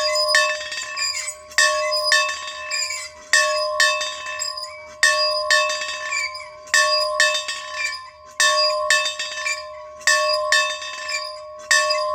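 A bell being rung over and over, with a loud strike about every second and a half and lighter strokes in between. Its tone rings on steadily between the strikes.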